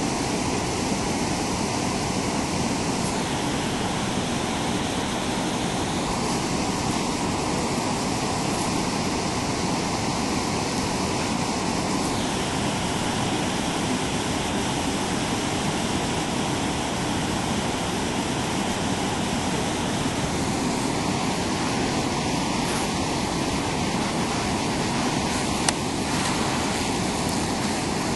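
River rapids rushing steadily, with one brief sharp click near the end.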